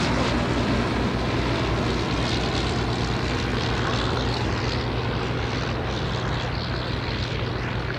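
Bristol M.1c monoplane's piston engine and propeller droning steadily in flight, growing a little fainter toward the end as the aircraft draws away.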